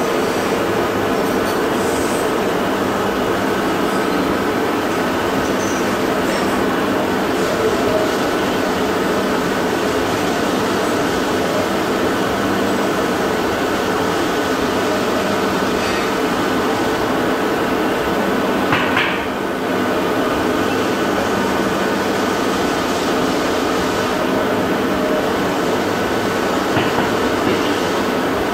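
Steady loud roar of a bronze melting furnace's burner, with a few steady humming tones running through it. A short higher-pitched sound and a slight dip in the roar come about two-thirds of the way through.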